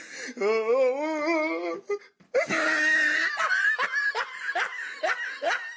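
High-pitched human laughter: a warbling giggle for about a second and a half, a brief break, then a run of quick, rising laughs.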